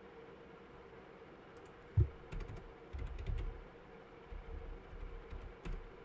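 Typing on a computer keyboard: irregular key clicks starting about a second and a half in, with a heavier thump at about two seconds, over a faint steady hum.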